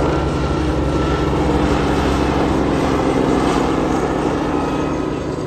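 Bell 47 Sioux and a second helicopter flying past together: a steady, fast rotor beat over engine drone, easing off near the end.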